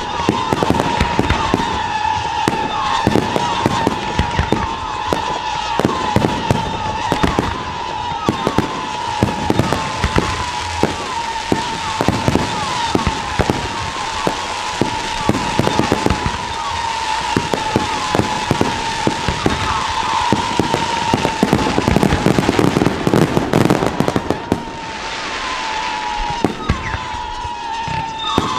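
Fireworks firing in rapid succession, a dense run of sharp bangs and crackles over a high, nearly continuous whistle that starts again with each new shot. The firing eases briefly near the end, then picks up again.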